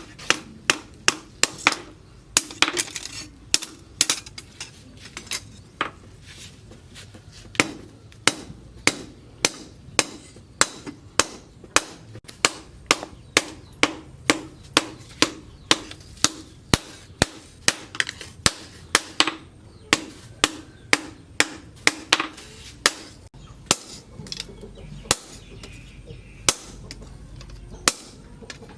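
Blacksmith's hand hammer striking hot steel, plough-disc steel being forged into a long knife blade, at about two blows a second, pausing briefly a few seconds in and again later.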